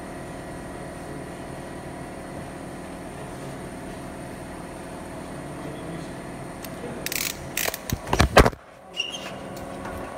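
Steady hum of workshop machinery with several steady tones. About seven seconds in, a cluster of loud knocks and clatter from metal parts being handled, which breaks off abruptly.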